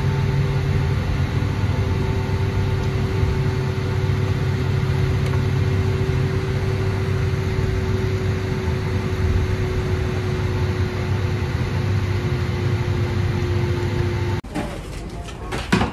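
Steady cabin noise inside a Boeing 757-200 taxiing in to the gate: a low drone with a constant whine above it. Near the end it cuts off abruptly to quieter sound with a few knocks.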